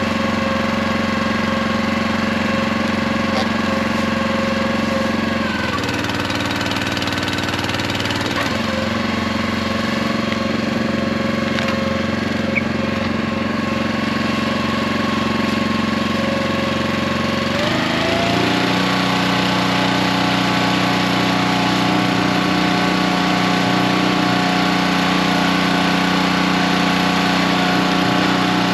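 Split-Fire 2265 log splitter's small gas engine running steadily, its pitch dipping for a few seconds about five seconds in, then rising to a higher steady speed a little past halfway.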